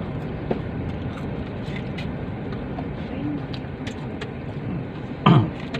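Steady low rumble inside a parked car's cabin with the engine running, with scattered small clicks and rustles. A brief voice sound comes near the end.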